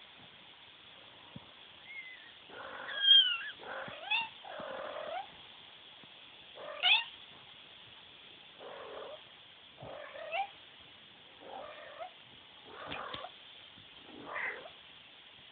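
Norwegian Forest Cat kittens, four and a half weeks old, mewing and squeaking as they play-fight: a string of short calls about every second, several sliding up or down in pitch.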